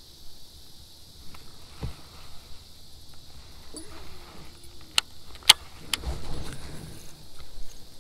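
A baitcasting reel being handled just before a cast: three sharp clicks about half a second apart over a quiet background.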